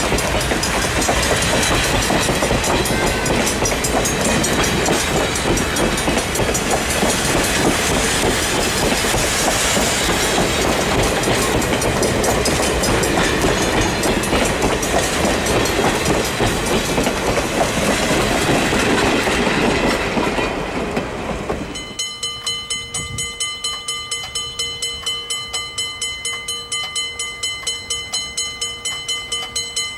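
Steam-hauled heavyweight passenger coaches rolling past close by, with the clickety-clack of their wheels over the rail joints. About two-thirds of the way through, the sound cuts to a much quieter, rapidly pulsing high tone.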